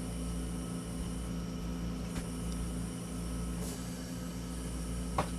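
Steady mechanical hum with several held tones over a soft hiss, broken by a faint tap or two.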